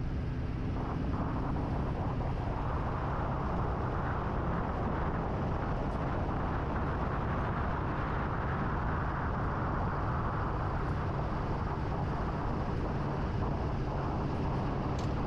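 Chevy Duramax diesel pickup driving steadily on a dirt road while hauling a water truck. Its tyres and engine make an even, continuous rumble.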